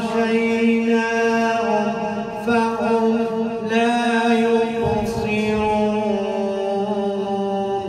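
A man reciting the Quran in the melodic chanted style (tajwid), holding long notes with ornamented turns. His pitch steps down about six seconds in.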